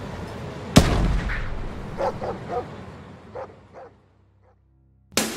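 A single loud bang about a second in, ringing out afterwards. A few short pitched calls follow, each fainter than the last, then a second of near silence. Loud rock music comes in right at the end.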